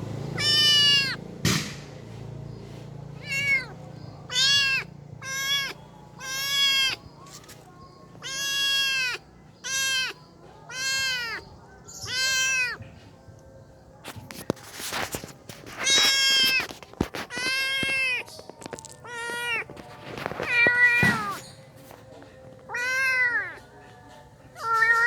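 Young kitten meowing over and over in high-pitched, arching cries, each under a second to about a second long, one after another with short gaps: the distress calls of a kitten left by its mother.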